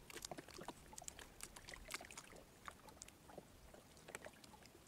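Faint, irregular water sounds around a wooden boat: scattered small drips, ticks and light lapping.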